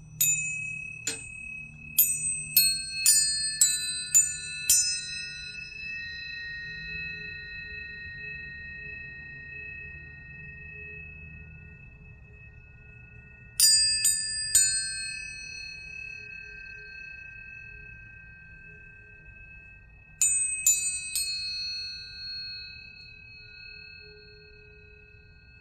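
Planetary tuning forks struck one after another, each a bright ping that settles into a long, pure, high ringing tone. Several forks sound together in three clusters of strikes: a run of about eight at the start, two about 14 seconds in, and three about 20 seconds in. The tones slowly fade between clusters.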